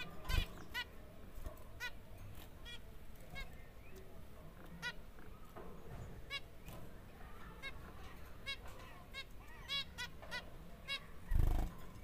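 Zebra finches calling: many short, pitched calls, one after another, about two a second. There is a dull thump about half a second in and a louder thump near the end.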